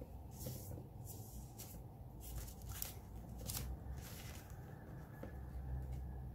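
Faint rustling and crinkling of Australian plastic banknotes being handled and tucked into a clear plastic binder pouch, in short irregular bursts.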